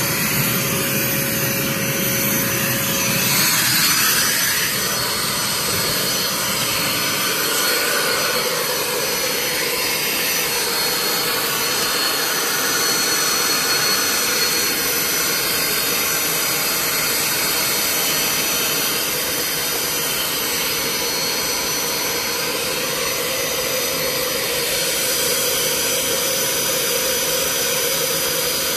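Vacuum motor running steadily during carpet extraction, its tone shifting about three seconds in.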